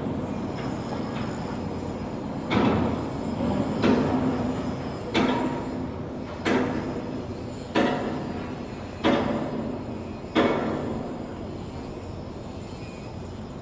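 Heavy metallic clanks at an even pace, about one every 1.3 seconds, each ringing briefly, over a steady low machinery rumble.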